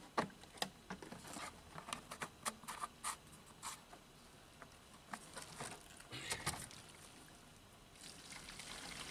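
Scattered light clicks and taps of handling, irregular and close together, then a faint steady hiss that begins about eight seconds in.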